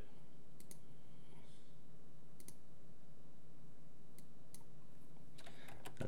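Scattered light clicks from computer controls in use, some in quick pairs and a short run near the end, over a steady low hum.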